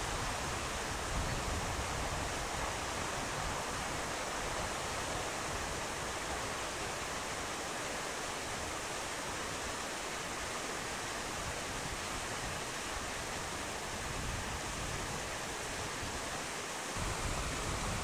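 Steady rushing of flowing river water, an even noise without any tones or breaks.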